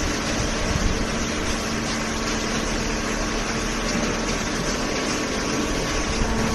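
Hydraulic baling press running: a steady mechanical hum from its pump and motor, a constant low tone over an even wash of machine noise.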